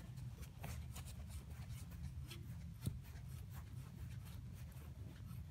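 Faint metallic clicks and scraping as a modified choke tube is screwed by hand into the muzzle of a Winchester SX3 20-gauge shotgun, with one sharper click about three seconds in, over a low steady rumble.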